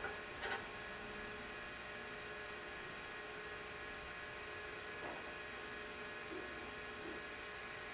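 Commodore 900 computer running: a steady hum of fan and drive noise with several constant tones, and a short burst of noise about half a second in.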